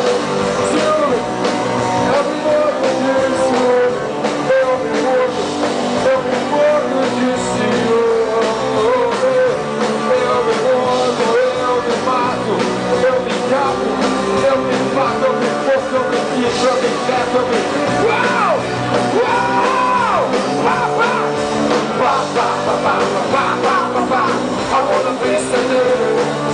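A live rock band playing, with a man singing lead into a microphone.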